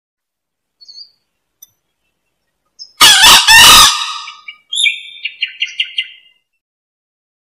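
Male green junglefowl crowing: one loud, hoarse two-part call about three seconds in, followed by a quick run of short notes that fades out. A faint chirp comes about a second in.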